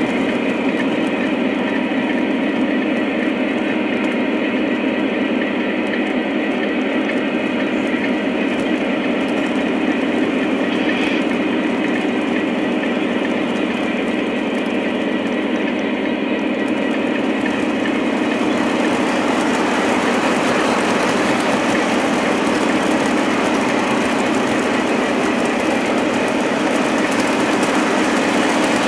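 O scale model freight cars rolling along model railroad track: a steady metallic rumble of wheels on rail with some clickety-clack, growing a little louder and hissier about two-thirds of the way through.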